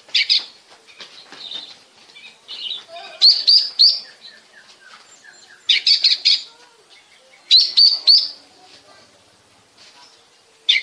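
Oriental magpie-robin (kacer) singing: loud, clear whistled phrases, often of three quick notes, repeating every two seconds or so, with softer chirps and twitters between them.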